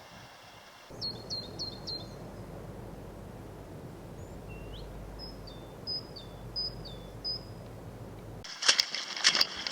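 A small bird calling in short high chirps: a quick run of four falling notes, then a single rising note and four two-part notes, over a steady low background rush. About a second before the end, loud crackling steps cut in.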